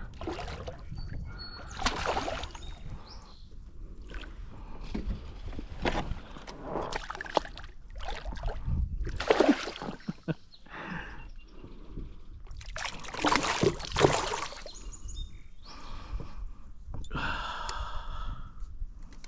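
Water splashing and sloshing around a small fishing boat, in irregular bursts, with a person's heavy breaths and gasps.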